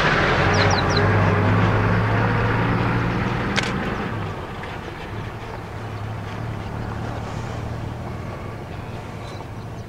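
A motor vehicle's engine running with a steady low hum, loud at first and fading away over about four seconds to a faint hum.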